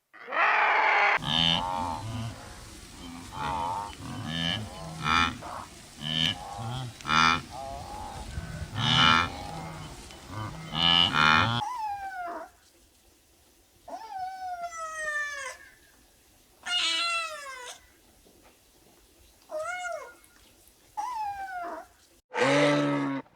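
Farm animal calls one after another: a busy run of short calls for the first half, then about six cat meows, each falling in pitch. Near the end, a cow moos, deep and loud.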